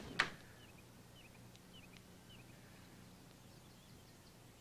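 A sharp click just after the start, then faint small-bird chirps: short rising and falling notes, several a second, over a steady low hum.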